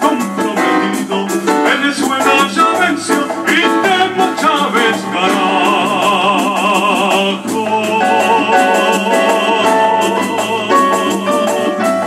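Festejo-style Latin American song music: a melodic passage over steady, rhythmic percussion.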